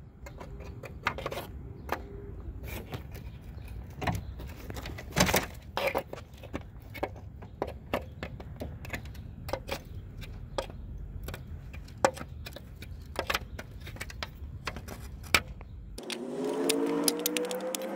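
Metal pick scraping and clicking against a push-in plastic retaining clip on the back of a grille emblem, many irregular sharp clicks over a low rumble. About two seconds before the end the rumble cuts off and a steady hum with a few tones takes its place.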